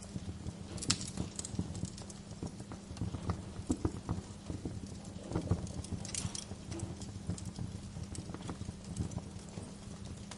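Wood fire crackling in a fireplace: dense, irregular small pops and snaps over a steady low rumble, with sharper pops about a second in and around six seconds.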